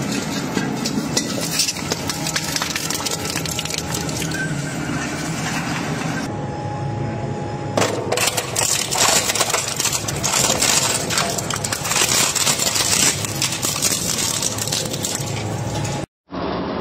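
Industrial twin-shaft shredders running and crushing material: a steady grinding rumble under dense cracking, crunching and rattling. From about eight seconds in the cracking gets louder and sharper as an electronic appliance is broken up between the hooked cutter discs, and there is a moment's silence near the end.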